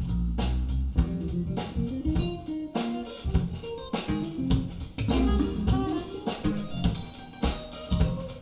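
Instrumental music with plucked guitar, bass and drum kit keeping a steady beat, played back from a CD player through speakers.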